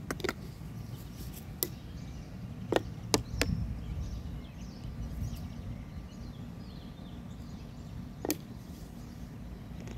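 Wind buffeting the phone's microphone in a steady low rumble, with several sharp clicks and taps in the first few seconds and one more near the end; faint high chirps come and go in the middle.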